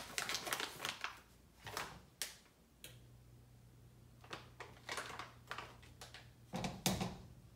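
Plastic food bag rustling and crinkling in short clicky strokes as it is handled and opened. A low steady hum comes in about three seconds in, and a louder knock sounds near the end.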